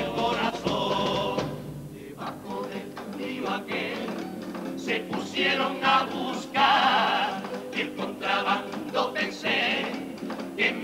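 An all-male comparsa choir singing in parts, backed by strummed acoustic guitar, with a softer passage about two seconds in.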